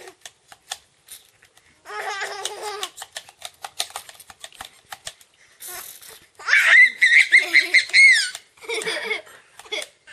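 A baby laughing in short bursts while being squirted with water pistols, then a loud, high-pitched squealing laugh a little past halfway through.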